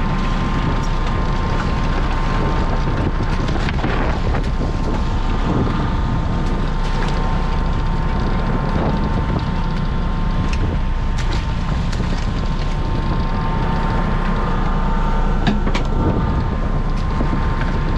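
Crab boat's engine and hydraulics running steadily with a steady whine, wind buffeting the microphone, and a few sharp knocks of gear on deck.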